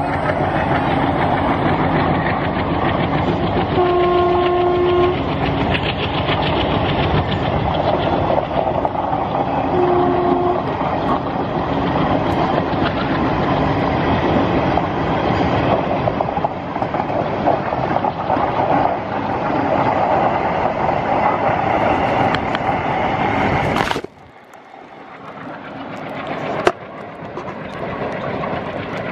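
Passenger train coaches rolling past with steady wheel-on-rail noise and clatter; the train's horn sounds twice, briefly, about 4 and 10 seconds in. Near the end the sound cuts off suddenly to a quieter, distant train rumble that slowly grows louder.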